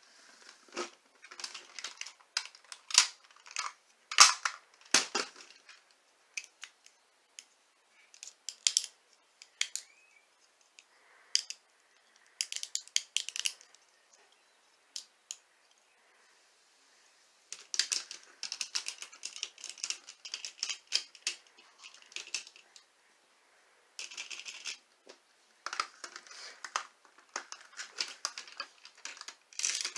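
Hard plastic parts of a combining robot toy being handled, folded and snapped apart by hand: bursts of sharp clicks, snaps and rattles, with a quiet stretch of a few seconds about halfway through.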